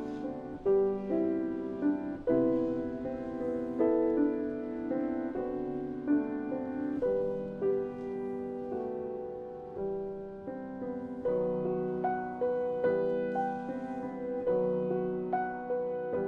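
Slow, gentle piano music: chords and single notes struck about once a second, each ringing on and fading.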